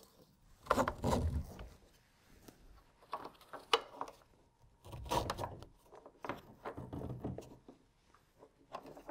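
Webbing tie-down straps of a plastic tackle crate being pulled tight, with the crate handled on the kayak: several short scrapes, each with a few clicks, spread across the stretch.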